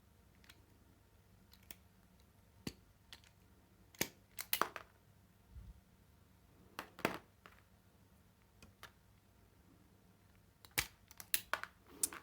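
Scattered sharp clicks and snaps of crimping pliers and wires being handled and worked, a second or more apart, with a quick run of clicks near the end.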